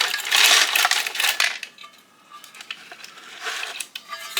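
Scrap copper pieces clattering and clinking in a metal container, a dense rattle for the first second and a half, then a few scattered clinks.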